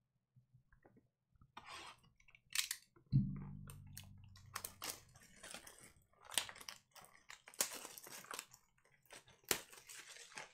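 Plastic shrink wrap being torn and peeled off a sealed box of trading cards, crinkling and crackling irregularly. A single dull thump about three seconds in is the loudest sound.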